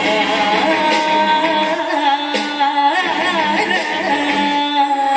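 Song with singing and instrumental backing from the musical fountain's light and sound show, the voice holding long, wavering notes.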